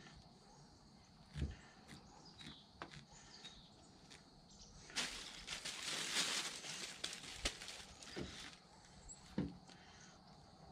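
A plastic bag crinkling for about three seconds from about five seconds in, as plucked duck feathers are wiped off the hands into it. Before and after, faint plucking rustles and a few soft knocks of the bird and knife being handled on a truck tailgate.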